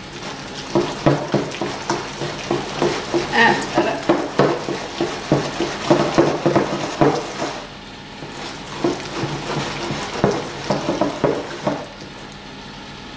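Wire balloon whisk beating a thick melted-chocolate and cream-cheese mixture in a glass bowl: fast, irregular clicking and scraping of the wires against the glass, pausing briefly about eight seconds in and stopping near the end.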